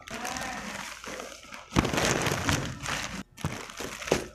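Plastic packaging crinkling and rustling as it is handled, a yellow plastic mailer pouch and then clear plastic wrap, in irregular swells that are loudest about two seconds in.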